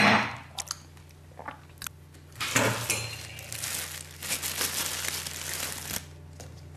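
A glass jar set down on a table with a short knock, then a thin plastic bag crinkling and rustling for several seconds as hands dig red chili peppers out of it.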